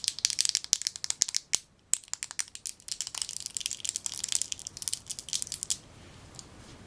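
Crinkling and crunching of packaging being handled, dense crackles in two stretches with a short break near two seconds in, stopping about six seconds in.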